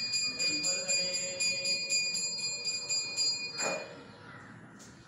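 Temple puja bell rung rapidly, about four or five strokes a second over a steady ringing tone, stopping about three and a half seconds in.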